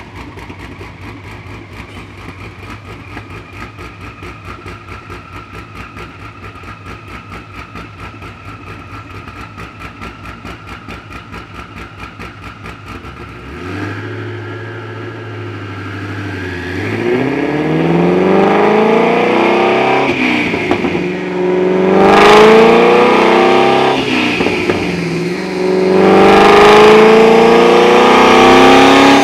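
Twin-turbocharged 5.2-litre flat-plane-crank V8 of a Shelby GT350 revving on a chassis dyno: after a quieter, steady pulsing stretch, the engine note climbs in pitch in three long rising runs with brief breaks between them, getting louder with each.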